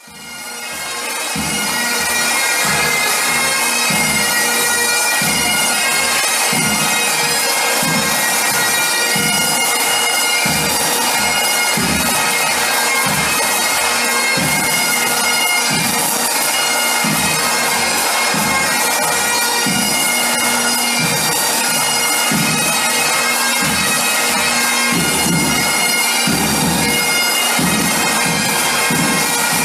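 Highland pipe band playing: a massed set of bagpipes sounds a melody over a steady drone, with drums beating a regular rhythm underneath. The sound fades in over the first second or two.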